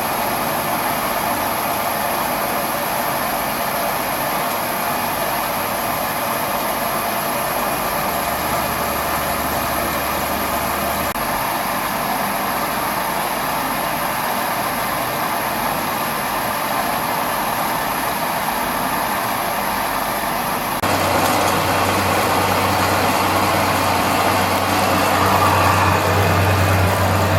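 Bohner & Köhle MF 1 universal milling machine running steadily, its motor and drive giving a broad mechanical hum with a thin high whine. About 21 seconds in the whine drops away and the running sound steps louder, with a deeper low hum added.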